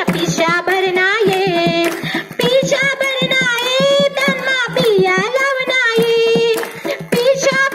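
Music: a high voice sings a gliding melody over a quick, steady percussion beat.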